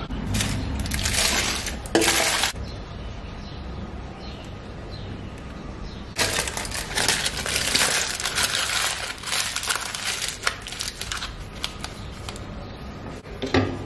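Aluminium foil crinkling and crackling as a foil packet is handled and crumpled into a ball by hand. It comes in two spells, a short one near the start and a longer one through the middle.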